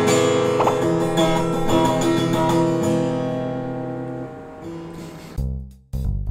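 Acoustic guitar strummed at random by someone who cannot play: a few loose chords struck in the first second, left to ring and slowly fade. About five seconds in it cuts abruptly to music with a strong, pulsing bass.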